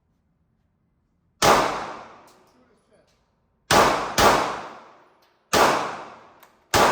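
Five gunshots at irregular intervals, the first about a second and a half in. Each is a sharp crack that rings out and fades over about a second.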